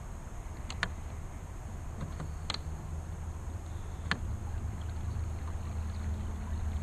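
Kayak under way, driven by an electric trolling motor: a steady low rumble of water and wind with a faint motor hum that settles in about four seconds in, and a few sharp ticks.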